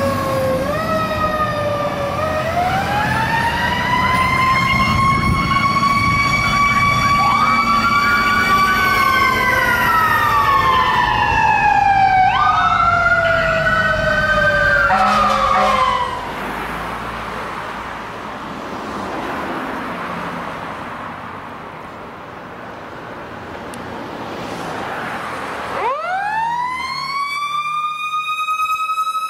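Fire truck sirens on a response, with two wailing sirens gliding slowly up and down and overlapping over the truck's road and engine noise. About halfway through they drop away, leaving mostly road noise. Near the end a siren sweeps up quickly and holds a steady high pitch.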